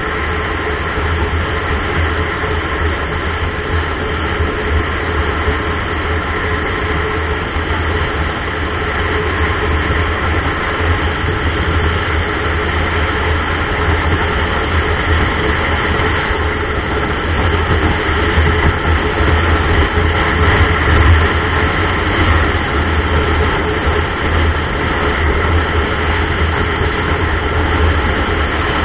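Motorcycle cruising at steady road speed: the engine runs with a low, steady hum under wind and road noise, swelling a little about two-thirds of the way through.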